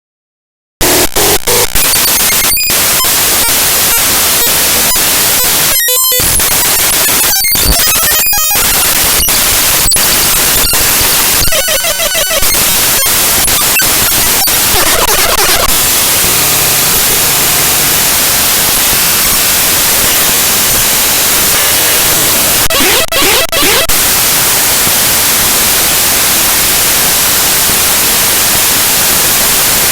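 Raw binary data of an image file played back as audio with Binary Waterfall: loud, harsh digital static that starts about a second in. Brief dropouts and short buzzy, warbling tone fragments break in a few times.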